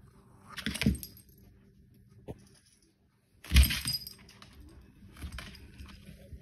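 Two short bursts of metallic jingling, each with a soft thump, the louder one about three and a half seconds in: a small dog's metal collar tag jingling as the dog moves on a tile floor.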